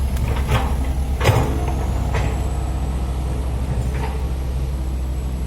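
Komatsu PC160-8LC excavator's diesel engine running steadily under work, with a few short metallic clanks from the bucket and machinery.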